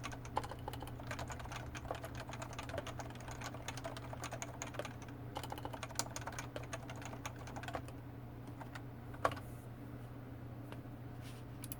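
Typing on a Topre Realforce 87U with 45 g electro-capacitive switches and black PBT keycaps: a fast run of soft keystrokes that stops about eight seconds in, then one louder key strike and a couple of faint taps near the end. A steady low hum lies underneath.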